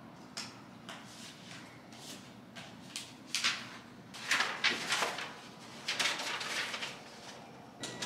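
Rummaging through files in an open filing cabinet drawer: papers and folders rustling and shifting in a string of short bursts, busiest in the middle.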